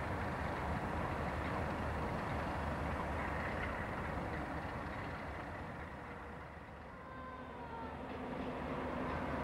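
Pair of Class 47 diesel locomotives with their Sulzer twelve-cylinder engines running, a steady low rumble. About seven seconds in it fades and gives way to the sound of an approaching InterCity express train growing louder.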